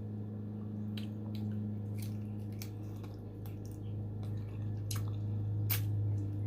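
Wet chewing and scattered mouth clicks of a person eating, over a steady low hum.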